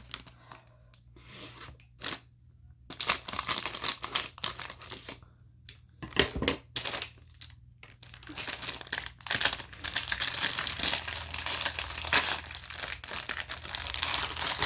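Toy packaging being handled, crinkling and tearing in irregular bursts while a fidget toy is unwrapped. The rustling comes in short spells with brief lulls at first, then runs almost continuously through the second half.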